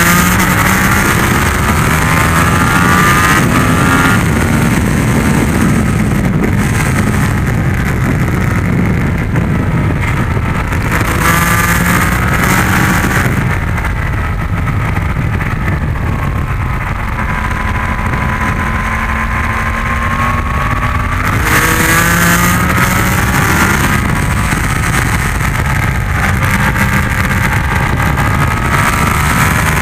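Yamaha MT-10's crossplane inline-four engine at race-track speed, heard from on the bike. Its pitch climbs under hard acceleration and drops back as it slows for corners, several times over, with bursts of wind noise on the microphone.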